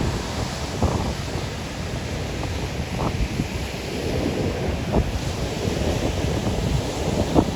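Ocean surf washing on a beach, a steady rushing wash with wind rumbling on the microphone and a few short thumps.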